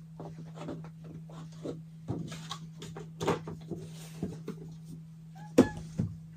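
Scattered light knocks and rustles of things being handled and moved on a wooden tabletop, with two sharper knocks near the end, over a steady low hum.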